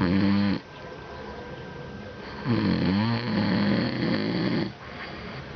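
Piglet snoring: a short snore of about half a second at the start, then a longer snore of about two seconds, wavering in pitch.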